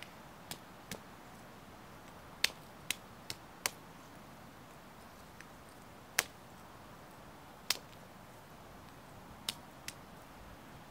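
Hand hammer striking down in short, sharp knocks, about ten blows at an uneven pace, several close together near the start and then single blows a second or two apart.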